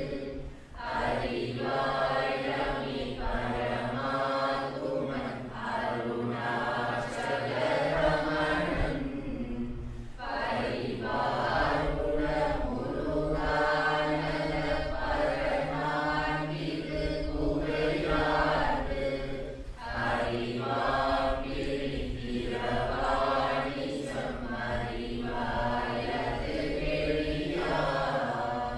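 Men's voices chanting a devotional hymn together in phrases, over a steady low drone.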